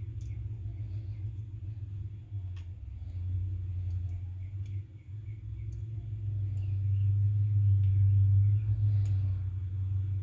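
A low steady hum that swells louder for a couple of seconds near the end, with scattered light clicks of small lock pins and tweezers being handled.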